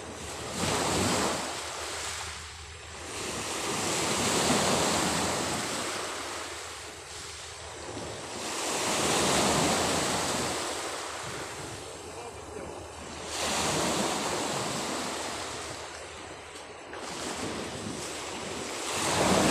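Small sea waves breaking and washing up a beach, swelling and fading about five times, one wash every four to five seconds, with wind on the microphone.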